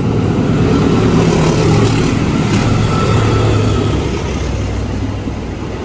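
Passenger train of stainless-steel coaches passing close on the track: a steady loud rumble of wheels on rails with a low hum, easing slightly near the end.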